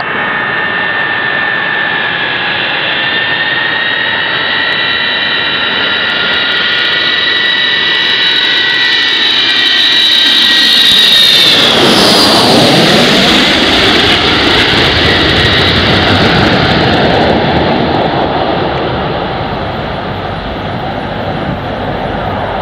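Avro Vulcan XH558's four Rolls-Royce Olympus turbojets on landing approach, passing low overhead: a high whistling howl builds to its loudest about halfway through, then drops sharply in pitch as the bomber goes over. A broad jet roar follows and slowly eases.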